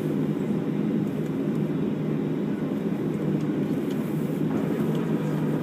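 Steady low rumble of a Boeing 737-700 heard from inside the cabin while the airliner is on the ground for pushback and engine start.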